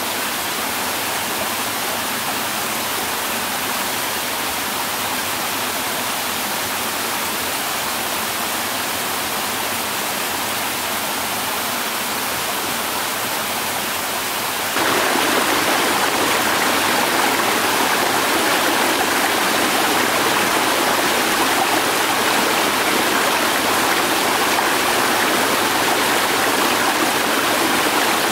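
Steady rushing of flowing water. About halfway through it jumps abruptly louder and brighter.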